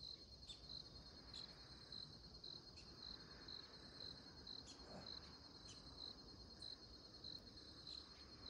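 Faint insects trilling steadily, a high buzz that pulses about twice a second, with a few faint scattered ticks.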